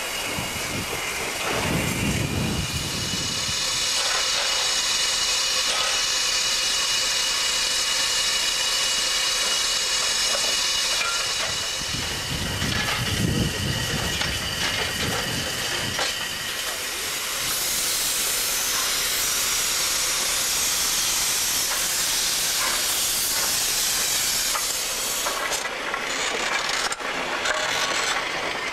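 Isle of Man Railway steam tank locomotive No. 4 Loch standing and hissing steam. A steady hiss gets stronger a little past halfway, then drops away sharply near the end, with two short spells of low rumble in the first half.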